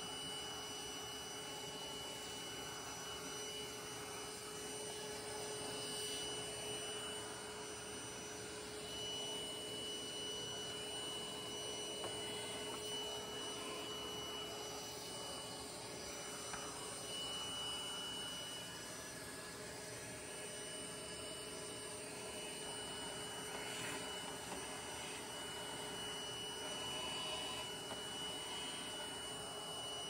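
Vacuum cleaner running steadily with a faint high whine, sucking dust off a refrigerator's condenser coils.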